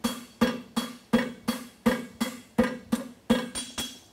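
Steady rhythm of hammer blows on red-hot steel on an anvil, about three a second, each with a short metallic ring from the anvil. Near the end come two lighter blows, then a brief pause.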